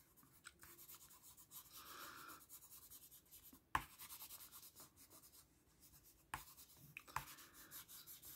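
Faint, quick scratching of a watercolour pencil shading on paper with the side of its lead, with a few light taps along the way.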